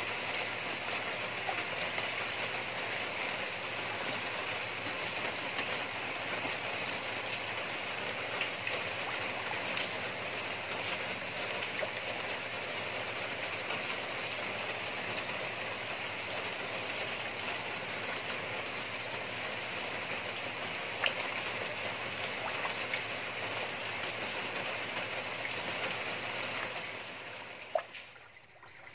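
Steady rush and splash of churning water in a koi pond, with a few small splashes, as koi crowd and thrash at the surface. It fades away shortly before the end.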